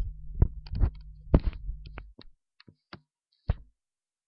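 Handling noise from a webcam being moved about: a run of about ten sharp clicks and knocks, thick in the first two seconds and sparser after.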